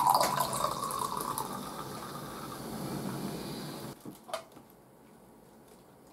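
Canned Kirin Zeitaku Shibori chu-hi, a fizzy drink, poured from the can into a small glass. It glugs at first, then runs as a steady fizzing pour that stops about four seconds in, followed by one short knock.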